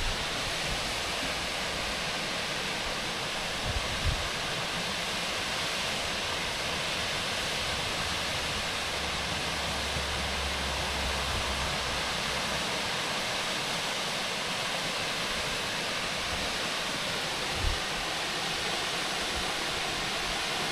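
Waterfall rushing steadily, a constant even roar of falling water, with a couple of brief wind buffets on the microphone about four seconds in and near the end.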